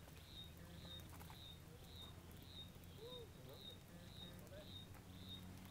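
Faint, regular high chirps from a small animal, one short note about twice a second, over a low steady hum.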